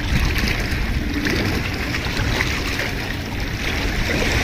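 Wind buffeting the microphone: a steady rumbling hiss.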